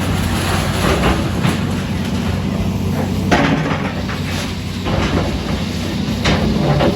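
An engine runs steadily under a series of noisy knocks or crashes, spaced about a second and a half apart.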